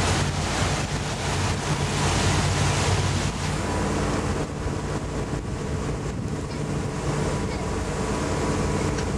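Motorboat engine running with a steady hum, under wind buffeting the microphone and rushing water.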